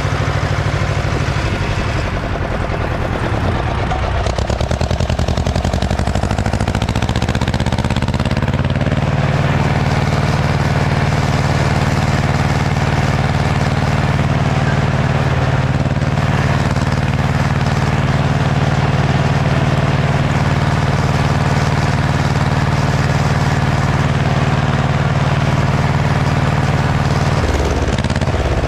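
Ursus C-335 tractor's two-cylinder diesel engine working under load while pulling a disc harrow. The engine speed sags a couple of seconds in, picks back up and runs steadily, then dips again near the end.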